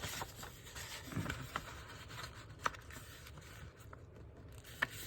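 Sheets of paper and cardstock being handled on a desk, rubbing and rustling, with a couple of sharp ticks.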